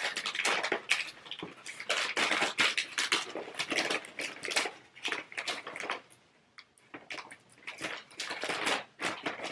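Wrapping paper crinkling and rustling as it is folded and pressed around a gift, in quick irregular crackles that thin out to a few scattered ones after about six seconds.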